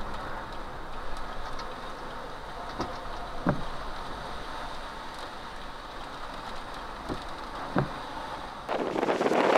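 Severe thunderstorm wind and rain making a steady rushing noise, with a few short dull thumps. Near the end a strong gust hits the microphone, and the rush turns suddenly much louder.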